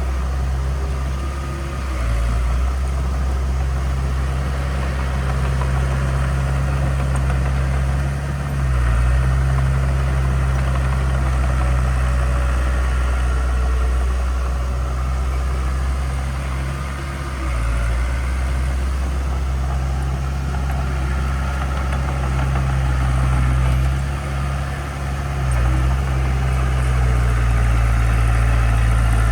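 Heavy diesel engine of earthmoving equipment running steadily, its note dipping and recovering briefly a few times.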